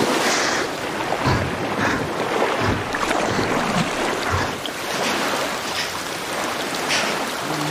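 Lake water splashing and lapping in waves, with irregular splashes about once a second.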